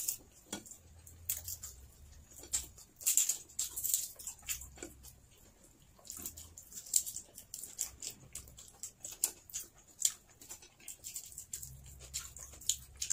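Close-up eating sounds: chewing and lip smacks while fried fish is pulled apart by hand, heard as an irregular scatter of sharp, wet clicks.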